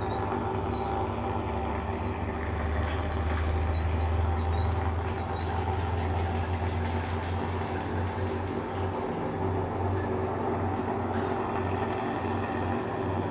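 A steady low mechanical rumble with a hum. A few short high chirps come in the first five seconds, and a run of fast, faint ticks comes a little past the middle.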